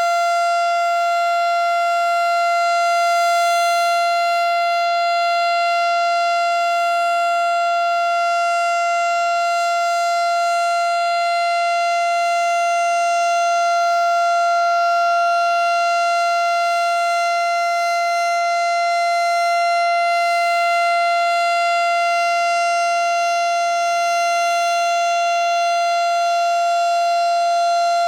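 Federal Signal STH-10 outdoor warning siren sounding a steady tone at full speed, its pitch held constant without rising or falling. It is a tornado drill siren test.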